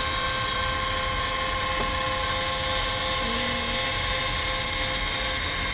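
Electric linear actuators of a DIY standing desk running as they lower the desktop: a steady motor drone with several held tones, even in level throughout.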